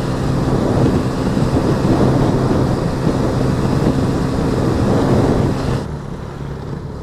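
Wind buffeting a helmet-mounted camera's microphone while riding a Yamaha Vega Force i 115cc motorcycle at speed, with the engine's steady hum underneath. About six seconds in, the wind noise drops off as the bike slows.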